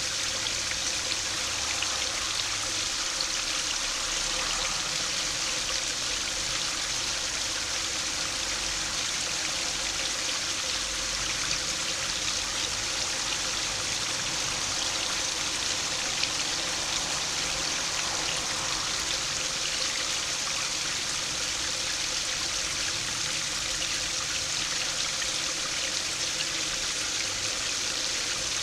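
Small stream spilling over a low concrete weir into a shallow pool, splashing and trickling steadily.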